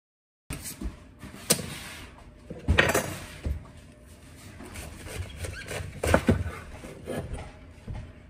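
Large kitchen knife cutting a head of cabbage on a cutting board: crunching of the leaves with several sharp knocks as the blade hits the board, the loudest about a second and a half, three and six seconds in. It begins after half a second of dead silence.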